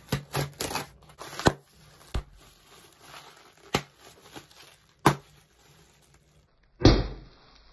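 A bubble-wrap package being torn open and crinkled, in scattered sharp rips and crackles. A louder rustling thump comes near the end.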